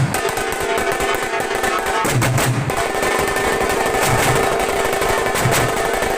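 Music led by rapid dhol drumming, with deep booming beats every second or two.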